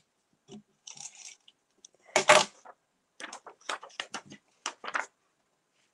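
Sheets of card being handled and slid about on a craft mat: short rustles and scrapes of paper, the loudest about two seconds in, then a quick run of short strokes.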